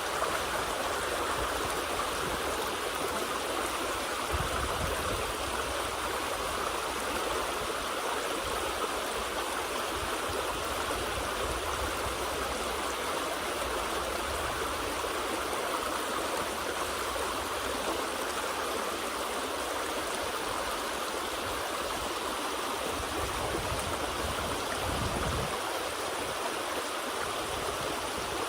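Water of a small river running steadily, with a brief low rumble about four seconds in and again near the end.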